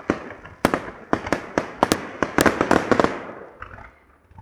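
Fireworks salute: a rapid series of sharp bangs from bursting shells, coming thickest about two to three seconds in, then thinning out and dying away near the end.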